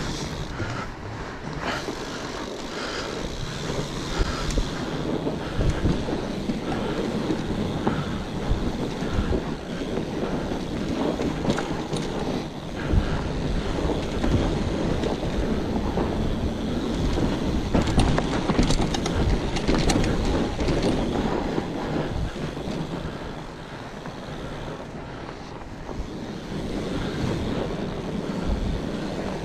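Fat bike riding along a forest trail: wind buffeting the microphone over the steady rumble of the wide tyres, with scattered knocks and rattles from the bike.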